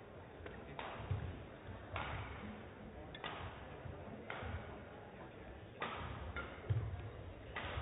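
Badminton shuttlecocks struck by rackets in a rally, six sharp hits about every one to one and a half seconds, each ringing briefly in the hall, with a few low thuds between them.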